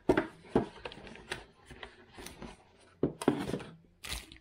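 Handling noise of a small box and its packaging being opened: scattered clicks and knocks with light rustling, and a louder cluster of knocks about three seconds in.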